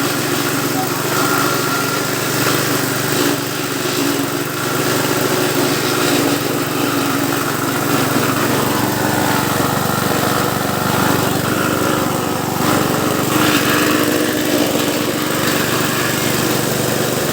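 Elephant-grass chopper machine running steadily, its motor and cutting drum keeping a constant hum, with a few brief louder surges.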